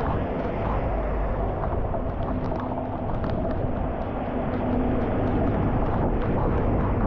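Floodwater pouring steadily into a clogged street drain, with splashing as debris is pulled from the drain opening by hand.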